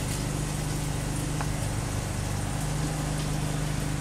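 Steady low machine hum of a food truck's onboard equipment, a constant drone with several low tones and no change in speed.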